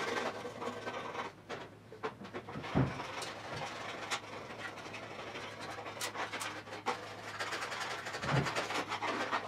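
Gloved hands handling an aerosol can of Eastwood internal frame coating and its plastic extension tube: scattered small clicks and rustles, with a dull knock about three seconds in and another near the end, over a low steady hum.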